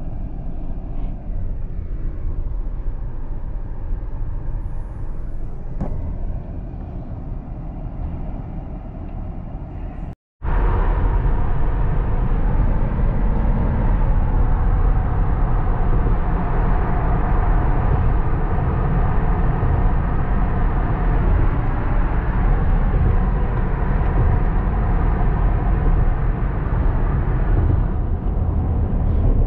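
Steady low vehicle rumble. It breaks off sharply about ten seconds in and comes back louder, with a faint steady hum over it.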